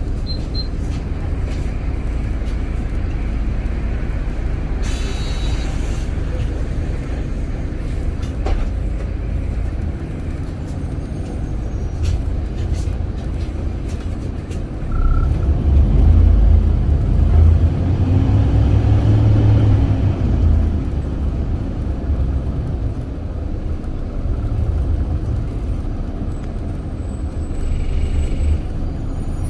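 City bus running, heard from inside the cabin: a steady low engine and road rumble. A short hiss comes about five seconds in. About halfway through the engine gets louder for several seconds, its pitch rising and then falling as the bus pulls away and speeds up.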